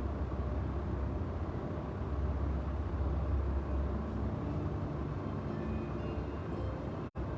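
Steady low rumbling background noise, with a brief dropout to silence near the end.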